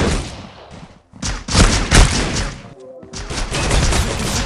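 Bursts of gunfire: a sharp bang right at the start, then two dense volleys, each about a second and a half long.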